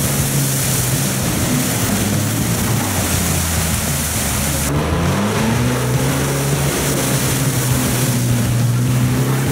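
Off-road jeep engine running under load and revving, its pitch rising and falling, with a steady hiss of wind or water noise over it.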